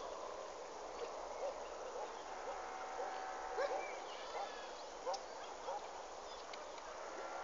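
Bird calls: a run of short, curved chirps, roughly two a second and irregular, over a steady outdoor background.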